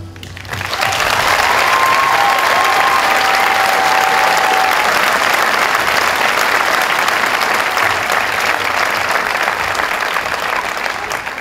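Audience applause swelling right after the music ends and holding steady, with a couple of held high cheers from the crowd between about one and five seconds in, then dying away near the end.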